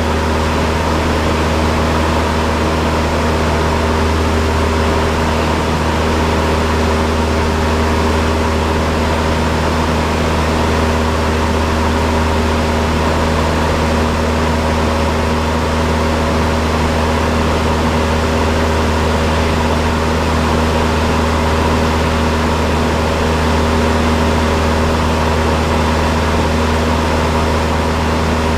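Cessna 172's piston engine and propeller running at a steady power setting, heard as a constant deep drone inside the cockpit, with no change in pitch.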